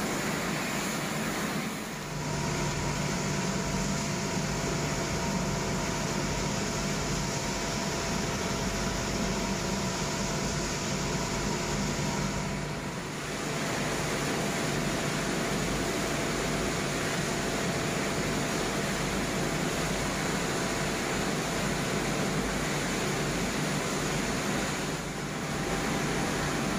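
Palm oil mill digester and screw press machinery running: a steady industrial din with a low hum and a few faint steady tones. It dips briefly three times.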